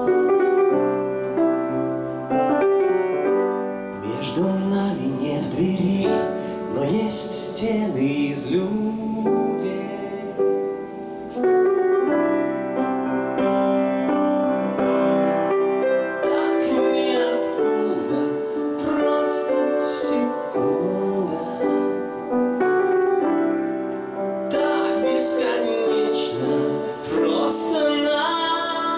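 Grand piano played with a man singing over it into a microphone, a live song running through the whole stretch.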